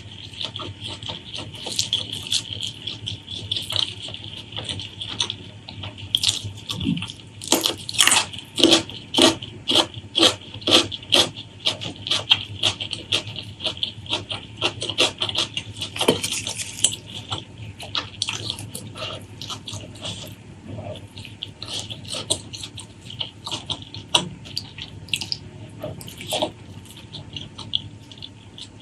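Close-miked eating sounds: wet, sticky chewing and lip-smacking in quick runs of sharp smacks. The densest, loudest stretch comes about a third of the way in.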